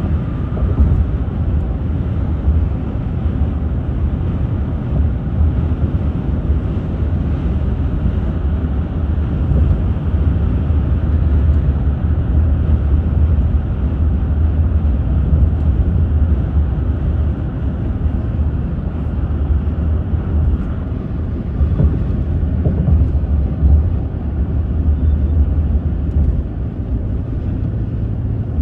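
Steady low road rumble and tyre noise inside a moving car's cabin, with no distinct events.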